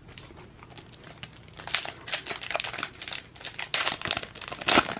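A Panini NBA Hoops card pack's wrapper being torn open and crinkled in the hands, in a run of irregular crackling bursts that start about one and a half seconds in and grow loudest near the end.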